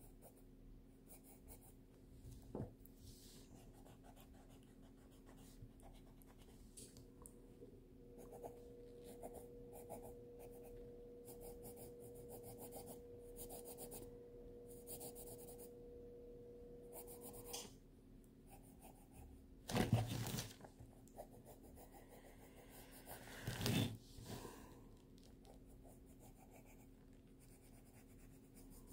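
Graphite pencil scratching on sketchbook paper in short, faint strokes. A faint steady tone sounds for about ten seconds midway, and two louder knocks come about four seconds apart late on.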